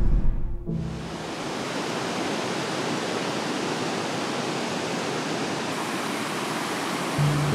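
Steady rushing water, a dense even hiss with little bass. Background music stops just under a second in and comes back near the end.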